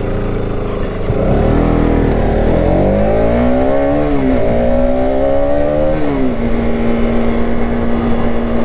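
Motorcycle engine pulling away. Its pitch rises, dips briefly at a gear change about four seconds in, and rises again. It then drops and holds a steady cruising note from about six seconds on.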